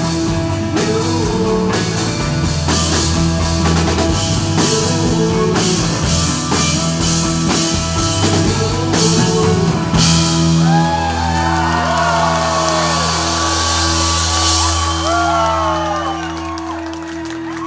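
Live rock band with acoustic guitar and drum kit playing the final bars of a song: the drums stop about ten seconds in and the last chord is held and rings out while audience members whoop.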